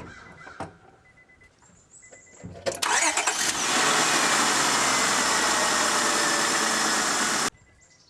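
A few light clicks, then the 1999 Honda Odyssey's 3.5-litre V6 is cranked by the starter and catches within about a second. It runs loud and steady, just after a coil pack swap meant to cure a random misfire, and the sound stops abruptly near the end.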